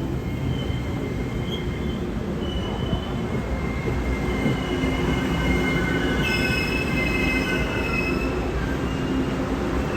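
Taiwan Railway train moving through Taipei's underground station, its wheels squealing in several thin high tones over a steady low rumble. The squeal is strongest a little past the middle and then fades.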